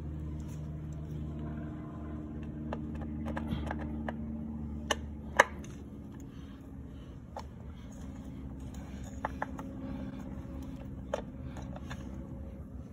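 Flathead screwdriver clicking and scraping in the slots of stainless steel screws as they are backed out of a transducer mounting bracket, with a steady low hum underneath. The clicks come singly and irregularly, the loudest pair a little after five seconds in.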